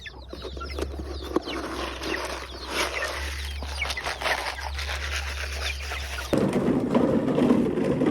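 Chickens clucking, many short overlapping calls. About six seconds in, a louder steady rushing noise starts suddenly and covers the clucking.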